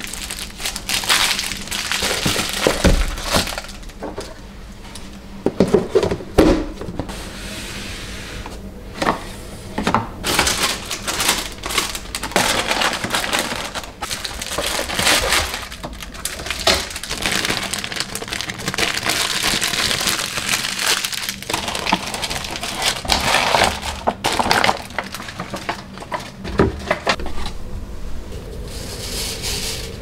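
Plastic bags crinkling and rustling in irregular bursts as they are handled and packed, with a few light knocks.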